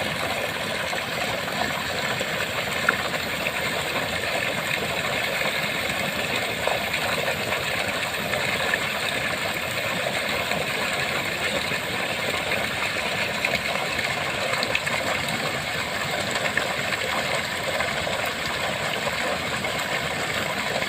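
Small waterfall splashing and rushing steadily into the water below, an even hiss with a few faint ticks of droplets.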